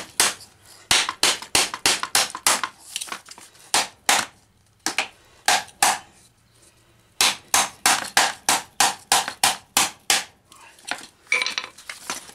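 Rapid hammer blows on the hub of an electric engine cooling fan, about three or four a second, in two runs with a pause between them. They are driving the stuck plastic fan blade off the motor shaft.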